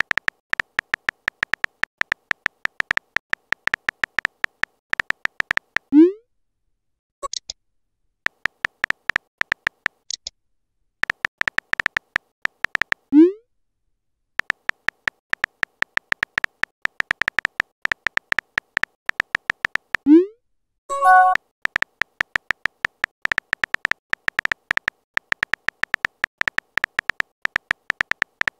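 Simulated phone-keyboard typing clicks from a texting-story chat app: dense runs of rapid, sharp ticks that pause briefly between messages. A short rising pop sounds three times, as each message is sent.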